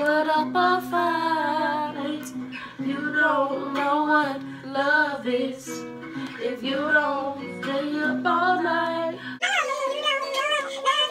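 A song with a woman singing a gliding vocal line over sustained low backing notes. About nine seconds in, the low notes drop out and the vocal changes.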